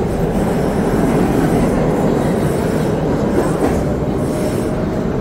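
New York City subway train running in a station, a loud steady rumble of wheels on track.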